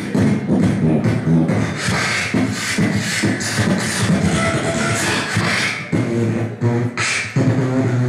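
Solo beatboxing amplified through a handheld microphone: a fast run of vocal drum hits, clicks and hissing hi-hat sounds over a low hummed bass line, with one sharp noisy snare-like hit about seven seconds in.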